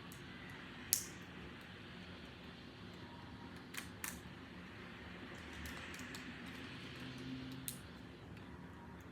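LEGO plastic pieces clicking and tapping as they are handled and pressed together: a few sharp clicks, the loudest about a second in, two close together around the middle and one more near the end, over a low steady background hum.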